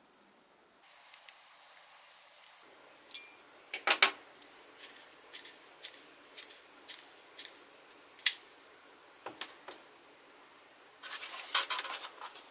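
Handling noise from small hard parts: scattered sharp clicks and clatters as a laser-cut plywood motor mount and hot glue gun are handled, then a busy run of clicking and rubbing near the end as the mount is pushed into the foam airframe.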